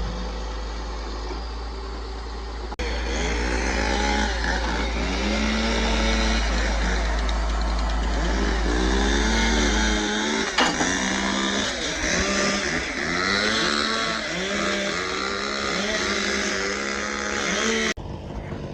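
Kenworth T800 self-loading logging truck's diesel engine revving up and down over and over, its pitch rising and falling, with a low rumble in the first half.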